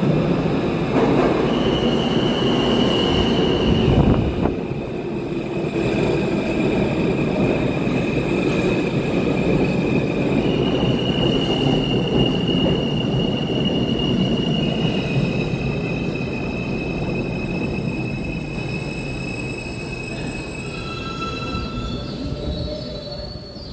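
New York City Subway G train of R160 cars pulling into an underground station and braking to a stop: wheels rumbling on the rails under a steady high squeal of brakes and wheels that shifts pitch a few times. The sound eases off as the train slows to a halt in the last few seconds.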